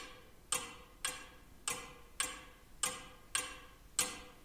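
Clock ticking steadily, a little under two ticks a second, each tick a sharp click with a short fading tail.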